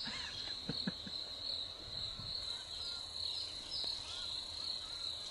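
Steady high-pitched chirring of insects, with a few faint short chirps over it and a couple of faint low clicks about a second in.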